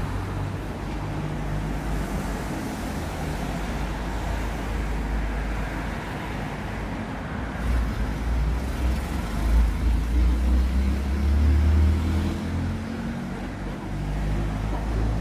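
Road traffic: a steady rumble of passing vehicles, growing louder between about eight and twelve seconds in.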